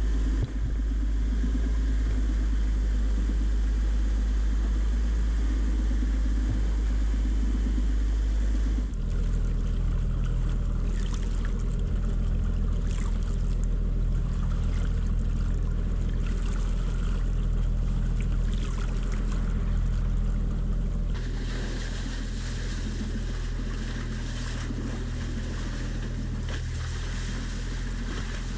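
Wind noise on the microphone for about the first nine seconds, then water rushing and splashing along the hulls of a sailing catamaran moving through choppy sea. The sound changes abruptly twice as the shots cut.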